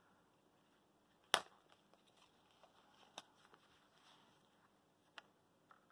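Banknotes and coins being handled into a clear plastic zip pouch of a cash binder: a sharp click about a second in, then two lighter clicks later on.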